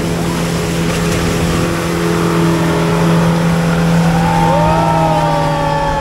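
Yamaha outboard motor driving a small speedboat flat out: a steady engine tone over the rush of wind and spray off the hull. Near the end, long gliding higher tones come in over it.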